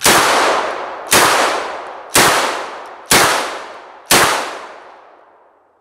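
DDI Puma bullpup shotgun fired five times, about one shot a second, each shot trailing off in a long echo that fades out after the last.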